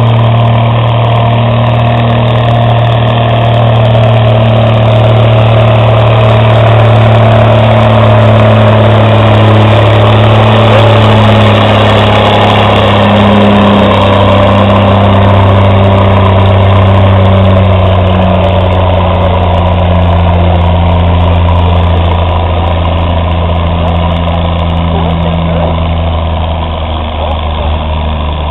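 Farm tractor engine running steadily, loud and close, with a deep even note that wavers a little in pitch midway and fades slightly near the end.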